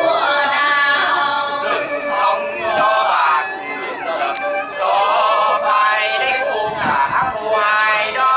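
Live traditional Vietnamese folk singing with instrumental accompaniment; the voice holds notes and slides between them.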